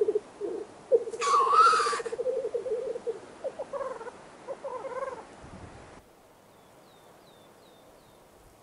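Black grouse cocks at the lek: the low, rolling bubbling song, rapidly pulsed, with one loud hissing sneeze-call about a second in. The bubbling grows fainter and stops after about five seconds, and a few faint high chirps follow near the end.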